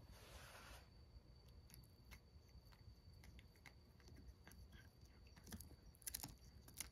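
Cat chewing a large dried sardine (niboshi): faint, scattered crunches, coming thicker near the end.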